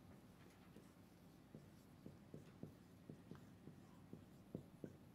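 Dry-erase marker writing on a whiteboard: a faint run of short strokes, about three a second, starting about a second and a half in.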